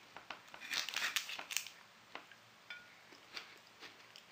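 Paper cake wrapper crinkling, loudest about a second in, with scattered light clicks of a fork on a china plate.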